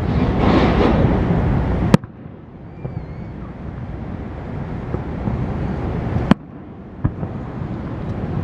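Fireworks shells bursting: two sharp bangs about four seconds apart and a smaller third one just after the second, over a steady noisy outdoor background that dips briefly after each bang.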